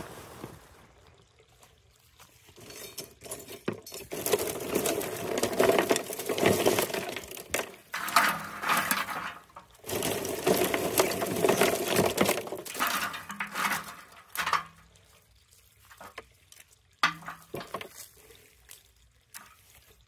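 Dry twigs and sticks rustling and clattering as they are handled and piled into a rusty steel drum fire pit, in long spells of dense crackling through the middle, then a few scattered light knocks near the end.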